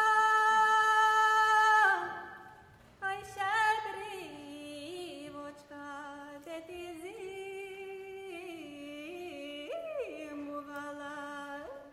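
Women's a cappella ensemble singing a Ukrainian folk song. A loud held note ends about two seconds in. Then a solo voice carries an ornamented, sliding melody over a low steady drone.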